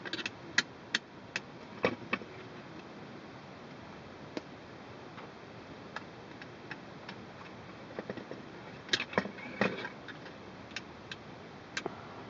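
Irregular sharp clicks and knocks of a wrench on the chassis corner bolts of a Starling V3FP electric spinning wheel as the bolts are loosened, in bunches in the first couple of seconds and again around nine seconds in.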